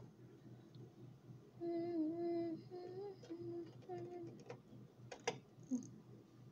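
A person humming a short tune of four notes: one longer wavering note, then three short ones. It is followed by a few light clicks and taps.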